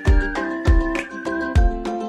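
Background music with a steady drum beat under a high, sustained melody line.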